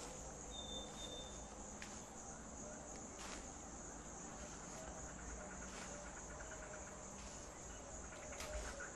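Faint, steady high-pitched chirring of insects in the background, with a brief thin whistle about half a second in.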